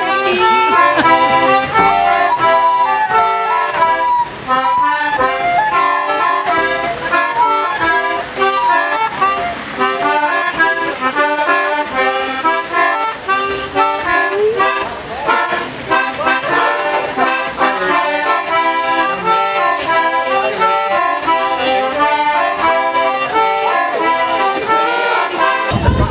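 Instrumental music: a brisk tune of short, steady notes played in quick succession.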